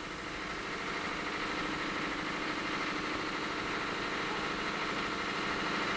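Field generator set's engine running steadily, a continuous even hum.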